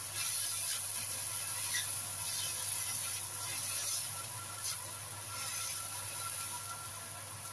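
Bitter melon and beef sizzling in a wok with a splash of water, stirred with a spatula in short scraping strokes every second or so over a steady hiss, with one sharp tick of the spatula on the pan near the end.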